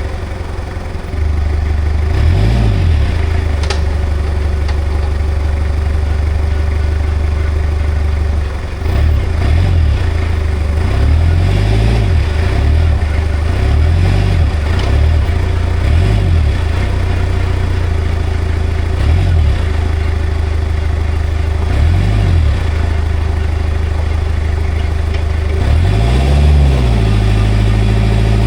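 Komatsu 30 forklift engine running, its speed rising and falling again and again, while the forklift is tested with its newly fitted hydraulic main pump.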